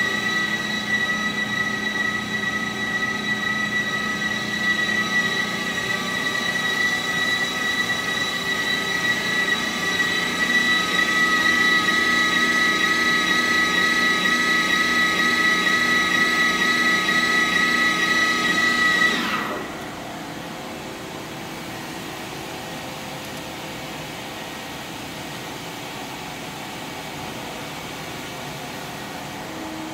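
CNC vertical boring mill running under power with a steady high-pitched whine of several tones, a little louder partway through. About two-thirds of the way in the whine winds down with a quick falling pitch and cuts out, leaving the machine's lower, steady idle hum.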